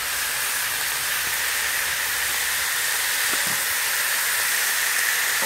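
Lamb flap pieces frying in an oiled wok, giving a steady sizzling hiss.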